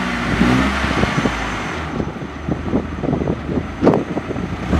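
Four-wheel-drive ute's engine running under load as it pulls on a chain around a tree stump, with many short clicks and knocks and one louder knock about four seconds in.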